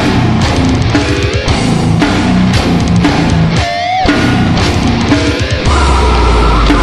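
Heavy metal song with loud guitar, carrying two short sliding pitch bends, about a second in and near four seconds in. Near the end the riff gives way to a held, heavier low note under a sustained wavering higher tone.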